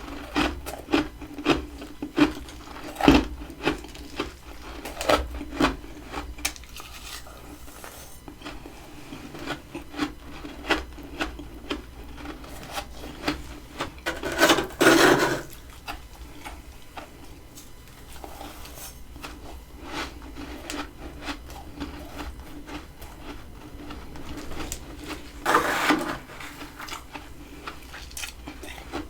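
Thick freezer frost being scraped and chipped loose with a utensil: a steady run of short scrapes and sharp knocks. Two longer, louder scrapes come about halfway through and again near the end.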